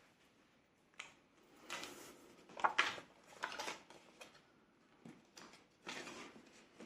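A few short rustles and light clicks from handling a cash binder, its pockets and the money going into them.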